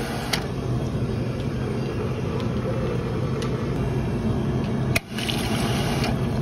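Self-serve soda fountain pouring a sparkling drink into a glass: a steady rush of liquid and fizz over the machine's low hum. The sound breaks off sharply about five seconds in and resumes.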